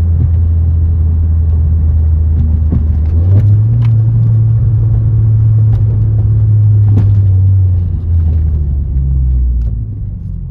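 Ford Focus's 1.0-litre three-cylinder engine running with a low steady drone, heard from inside the cabin. Its pitch steps up a few seconds in, then drops back and grows quieter near the end as the car slows towards a red light.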